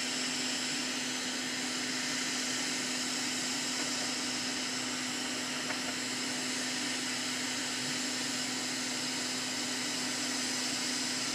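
Hot air rework station blowing a steady stream of hot air through its nozzle, with a steady hum, as it heats a MOSFET on an engine control unit circuit board to melt its solder for removal.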